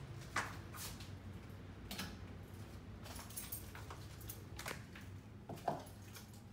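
A few light clicks and taps at irregular intervals over a low steady hum, the sharpest about half a second in and near the end.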